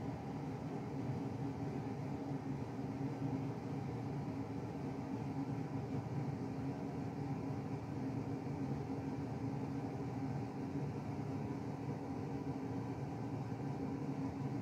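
A steady low hum that does not change, with a faint hiss above it.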